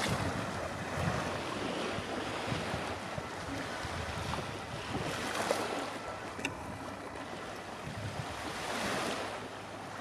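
Small waves washing in over a sandy beach, with wind buffeting the microphone; the wash swells about five seconds in and again near nine seconds.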